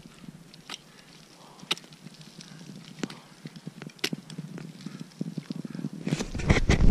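Ice axes and crampons biting into a steep snow-and-ice face: sharp strikes about once a second. Near the end they come in a quicker cluster, with rustling and wind buffeting on the microphone.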